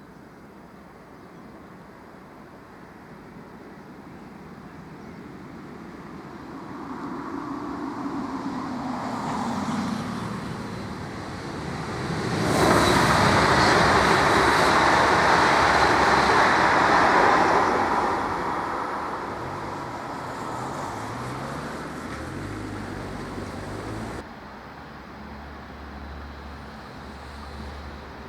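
A vehicle passes by: its noise swells gradually, is loudest for about five seconds around the middle, then fades, and cuts off abruptly near the end.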